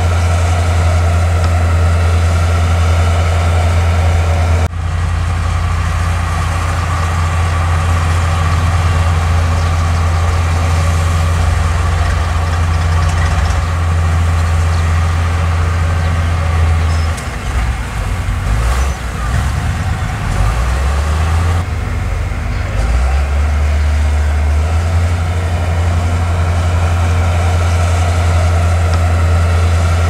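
Heavy diesel engines of a crawler bulldozer and a dump truck running with a steady deep hum. The sound shifts abruptly about five seconds in, and the hum wavers and dips for several seconds past the middle before settling again.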